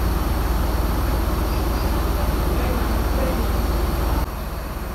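Diesel engines of parked intercity coaches idling, a steady low rumble with an even pulse; it drops suddenly in level about four seconds in.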